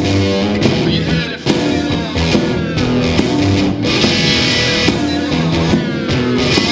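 Blues song played on guitars, with notes bending in pitch.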